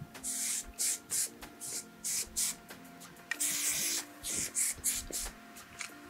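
Aerosol hairspray (Aveda Air Control light-hold) being sprayed over the hair in a series of short hisses, with one longer hiss about three and a half seconds in.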